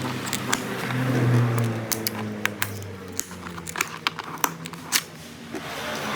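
Irregular sharp clicks and taps, about a dozen, over a low steady hum that shifts in pitch now and then.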